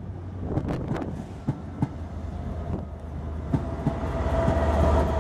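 Loco-hauled passenger coaches rolling past at low speed, their wheels clicking in pairs over rail joints. From about four seconds in, the steady drone of the approaching Class 67 diesel locomotive's two-stroke V12 engine builds up beneath the clicks, with a held whine over it.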